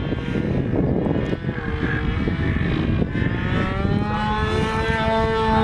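Radio-controlled flying lawnmower model's motor and propeller droning in flight over a rough wind-like rumble. A steady buzzing tone comes in clearly a little past halfway through and holds.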